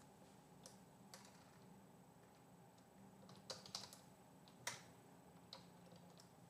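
Faint computer keyboard typing: a few scattered keystrokes, a quick run of taps around the middle, and one sharper keystroke just after it.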